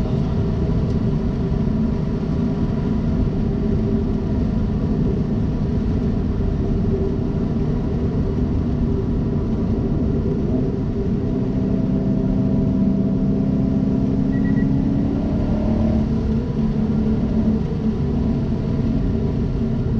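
Subaru Impreza WRX STI's turbocharged flat-four engine and road noise heard from inside the cabin while driving, a steady low drone. A little past halfway the engine note rises slightly and grows stronger for a few seconds, then settles.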